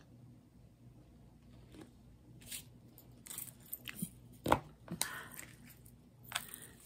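Quiet scattered clicks and crinkles of diamond painting: a drill pen picking up and pressing resin drills, and the clear plastic cover sheet over the sticky canvas being lifted and moved. The loudest click comes about four and a half seconds in.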